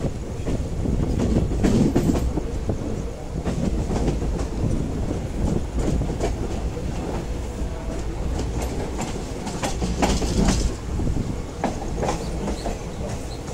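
Indian Railways passenger train pulling out of a station: coach wheels clattering irregularly over rail joints and points above a steady rumble of the rolling coach. The clatter is loudest about two seconds in and again about ten seconds in.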